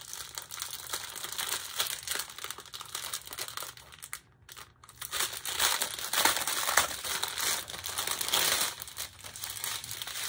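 Small clear plastic bags of diamond painting drills crinkling as they are handled, with a brief pause about four seconds in.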